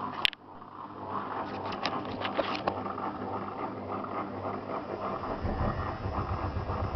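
Zanussi FL984CN front-loading washing machine partway through a 35° wash: a single sharp click just after the start, then a few seconds of light clicking and swishing from the drum. About five and a half seconds in, the drum motor starts up with a low, steady hum.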